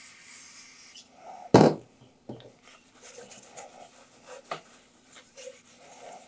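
Aerosol can spraying onto a rag held against an aluminium cylinder head, a steady hiss that stops about a second in. Then a loud knock as the head is handled on the workbench, followed by a few lighter knocks and soft rubbing.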